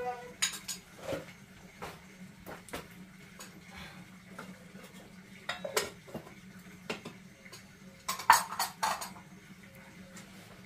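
Dishes and utensils clinking against each other in scattered sharp clicks, with a louder cluster of clinks about eight seconds in, over a low steady hum.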